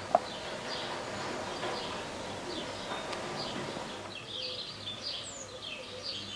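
Small birds chirping and twittering in quick repeated calls, with a sharp click right at the start.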